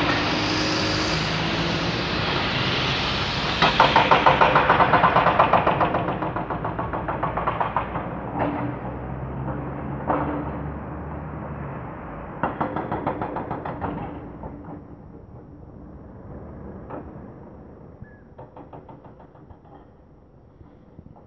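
Heavy diesel engine running and fading steadily away, with several bursts of fast rattling clatter and an occasional single knock.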